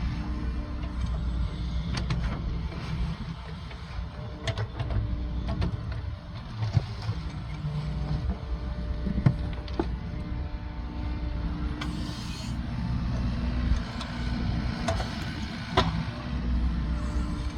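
Backhoe's diesel engine running with a steady low drone, with a few sharp knocks scattered through it.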